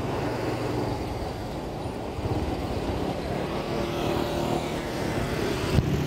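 Motorcycle engine of a tricycle running steadily on the move, heard from the sidecar, with street traffic around it. A single sharp knock just before the end.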